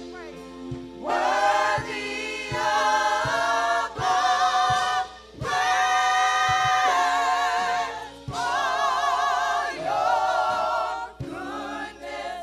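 A group of women singing gospel in several voices into microphones, in long held phrases with vibrato broken by short breaths, over a steady beat.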